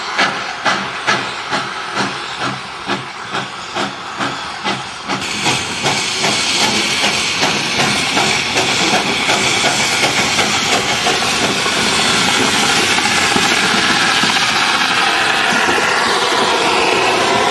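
Steam locomotive working a train: exhaust chuffs about two a second, then from about five seconds in a loud continuous hiss of steam as it passes close.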